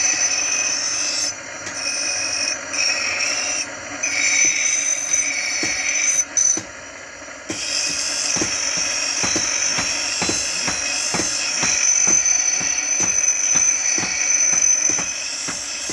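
Metalworking on a hand-forged axe head: a steady high scraping hiss, with regular tool strokes about twice a second through the second half, like filing or rasping the metal.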